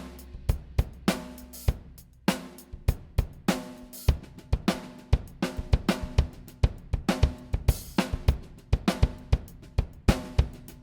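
Mixed acoustic drum kit playing a groove: kick, snare, hi-hat and cymbals in a steady beat. A low sustained note under the drums stops about two and a half seconds in, just after a short break in the pattern.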